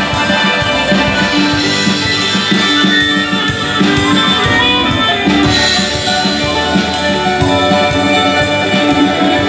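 Live band playing an instrumental passage: saxophone over electric guitar, keyboard and drums, with a steady beat of cymbal hits.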